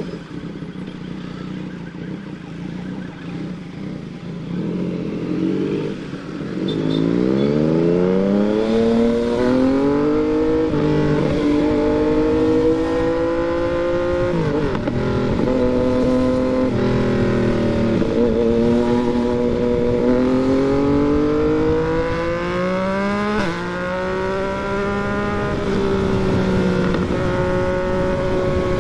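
Yamaha MT-09 inline three-cylinder motorcycle engine running low for the first few seconds, then accelerating hard. Its pitch climbs and drops back at each of several upshifts.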